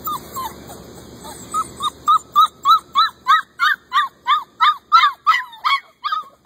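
Puppy yipping over and over, a run of short, high cries that each rise and fall in pitch, about three a second, getting louder from about a second and a half in.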